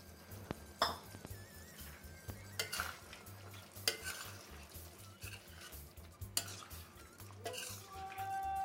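Spoon stirring chicken curry in a kadai, with scattered scrapes and knocks against the pan over a light sizzle as thin coconut milk is mixed in. A steady held tone comes in near the end.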